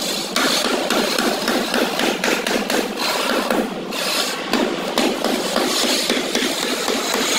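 Mallet tapping a marble floor tile down into its wet mortar bed, many quick taps in a row, over a steady noisy background.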